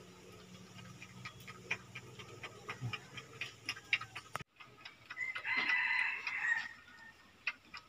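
Crested porcupine feeding, with a run of sharp, irregular crunching clicks as it chews. After a sudden break, a call of about two seconds follows, the loudest sound here.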